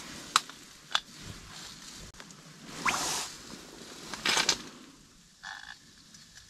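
Handling sounds of lowering a groundbait-filled cone feeder on a winter fishing reel through an ice hole: a couple of sharp clicks, two rustling swishes, and near the end a short rattling croak of the reel as line is pulled off.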